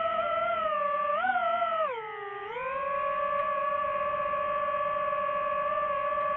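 Quadcopter drone's electric motors and propellers whining, heard up close from the camera on the drone. The pitch wavers, drops and falls quieter about two seconds in, then comes back up and holds steady.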